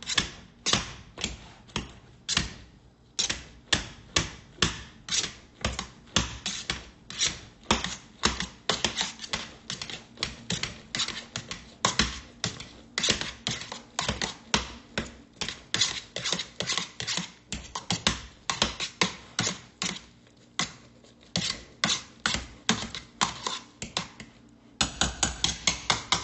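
A wire potato masher pushed down again and again through cooked potatoes, butter and cream cheese, knocking on the bottom of a stainless steel pot at about two to three strokes a second, with a quicker run of clicks near the end.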